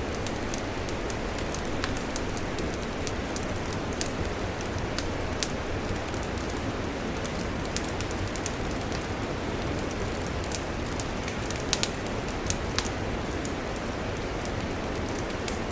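Campfire burning: a steady hiss with frequent sharp crackles and pops, a few louder pops about twelve seconds in.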